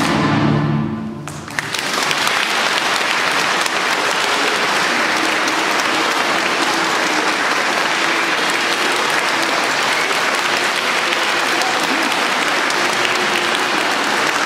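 A choir's final held chord dies away in the first second or so, then audience applause breaks out and continues steadily.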